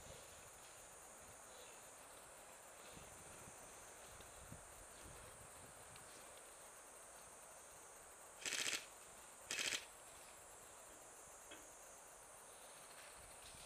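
Two short bursts of full-auto airsoft electric rifle fire, each about half a second of rapid shots, about a second apart near the middle, over a steady high insect drone.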